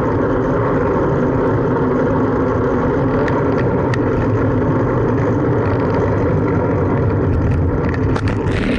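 Steady low rush of wind buffeting the microphone of a camera on a moving bicycle, mixed with road traffic noise. A few sharp clicks come about three and four seconds in, and a cluster of rattling clicks comes near the end.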